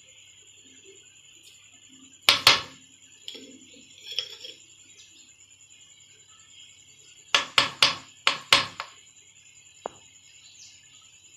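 Steel spoon knocking against the rim of a metal cooking pot to tap spice off it. There is a loud double knock a couple of seconds in, a few lighter taps, and later a quick run of about five sharp clicks. A faint steady high-pitched hum sits underneath.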